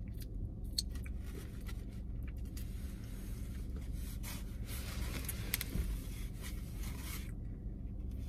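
Close-up chewing of chicken wings, with scattered crunches and clicks and a stretch of rustling, scraping noise in the middle, over a steady low hum.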